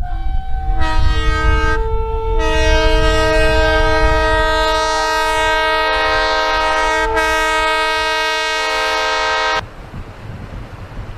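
Locomotive air horn sounding a chord of several notes for a long blast over the low rumble of the train, cutting off suddenly near the end and leaving the rumble.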